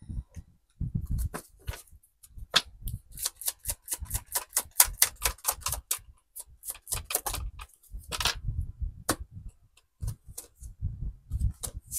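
Tarot cards handled and shuffled in the hands: crisp card clicks, with a fast run of flicking clicks in the middle, over soft low thumps of the deck handled on the table.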